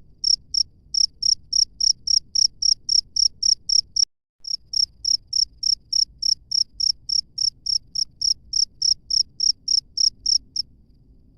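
A cricket chirping in a steady, even rhythm of high-pitched chirps, about four or five a second. The chirping breaks off with a click about four seconds in, resumes at once, and stops about a second before the end.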